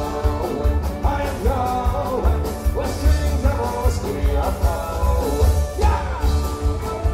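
A live folk-rock band playing: a drum kit keeps a steady beat under acoustic guitar and fiddle, with a lead melody line that bends and slides.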